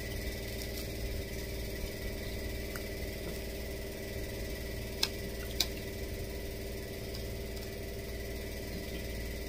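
Steady electrical hum of a running room appliance, with two light clinks of cutlery on a plate about halfway through, just over half a second apart.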